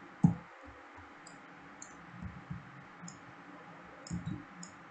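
Computer mouse clicking: about five short, sharp clicks spread through a few seconds, with soft low knocks on the desk between them. The loudest sound is a single low thump about a quarter second in.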